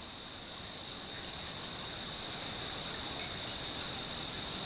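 Insects trilling steadily in one unbroken high tone, over a soft even background hiss.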